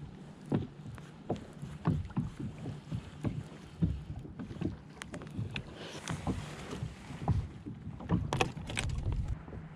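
Small choppy waves slapping and knocking against the plastic hull of a NuCanoe Frontier 12 kayak, irregular low slaps a few times a second, with a quick run of sharper ones near the end.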